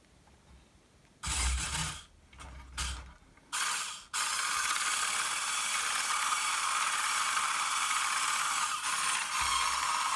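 Small electric motor driving the rear track unit of a Bruder John Deere 9620RX model, switched on in three short bursts and then running steadily from about four seconds in. The mechanism whirs with a rubbing sound: the motor sits a little too low and rubs on this side.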